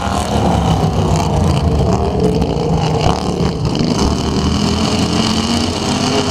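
A pack of super-modified racing lawn tractors at full throttle, their small engines running together at high revs and overlapping, with the pitch wavering slightly as they race round the track.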